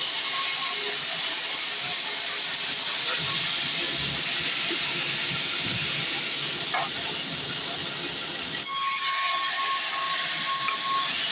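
Sawmill bandsaw cutting through a log: a steady, even hiss of the blade in the wood, with a thin high whine joining about three-quarters of the way through.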